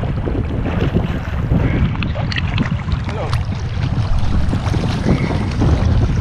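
Choppy sea water splashing and lapping against a camera held at the surface, with wind rumbling on its microphone.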